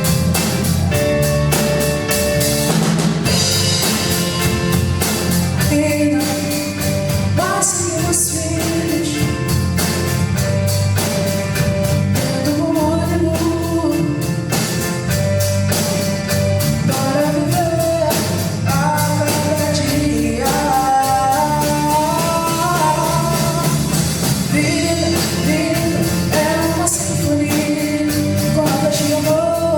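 Live pop-rock band playing: a woman singing over keyboard, electric guitar, bass and drum kit.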